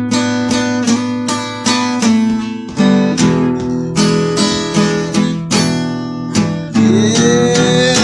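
Acoustic blues guitar playing a strummed, plucked rhythm of evenly spaced chords. Near the end a held note slides up in pitch.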